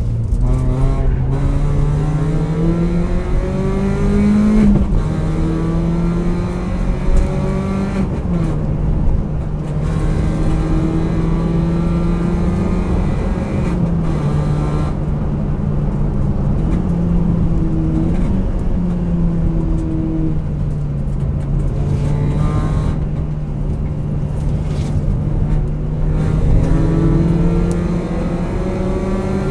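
Car engine heard from inside the cabin, pulling through the gears. Its note climbs under acceleration and drops back at each gear change, several times over, with steady road noise underneath.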